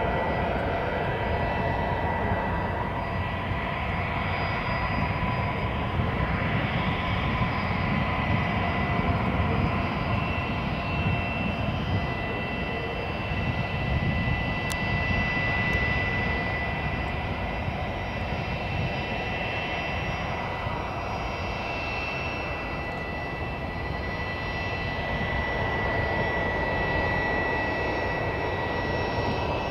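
Gulfstream IV business jet taxiing, its two Rolls-Royce Tay turbofans at low taxi power, giving a steady high-pitched whine over a rumble.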